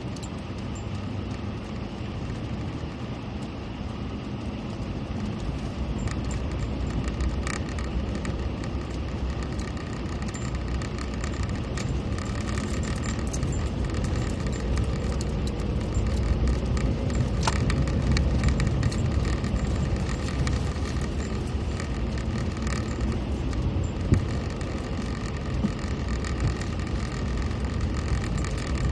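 A vehicle driving, a steady low rumble of engine and road noise with small rattles and clicks, growing a little louder in the middle, and one sharp knock near the end.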